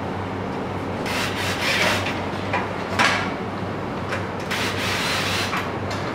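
Metal parts scraping and rubbing against the steel frame of a flat-packed wall cabinet as its rear wall-mounting bar is fitted, in several short irregular bursts.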